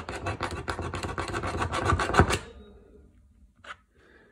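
A Japanese screw punch pressed down by hand, its spring-driven spiral bit turning and rasping through the journal's canvas spine and paper to punch a hole. The rapid rasping lasts about two and a half seconds and is loudest just before it stops, with a brief faint scrape about a second later.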